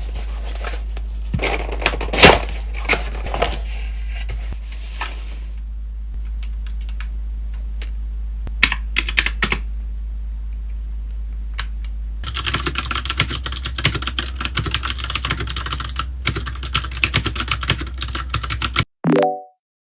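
Typing on a computer keyboard: scattered key clicks at first, then a fast, continuous run of keystrokes for several seconds that cuts off suddenly near the end, followed by a short pitched pop. A steady low hum lies underneath.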